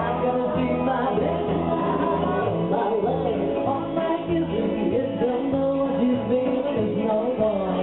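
Live entertainment music: a woman singing a song with instrumental backing.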